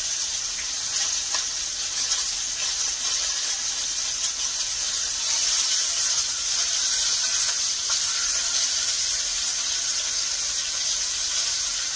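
Ribeye steaks sizzling in a hot cast iron skillet, a steady high hiss, with one steak held on its fat edge so the fat cap renders against the iron.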